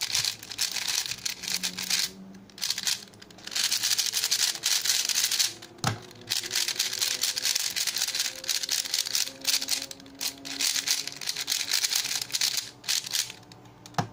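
Cyclone Boys FeiJue M magnetic 3x3 speedcube being turned fast: a dense, really loud clacking rattle of its plastic pieces and unglued magnets, in runs broken by short pauses. This is the noise of the cube after two weeks of breaking in.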